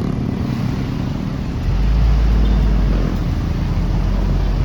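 Tour bus engine rumbling close by, the deep rumble growing heavier about a second and a half in as it comes near.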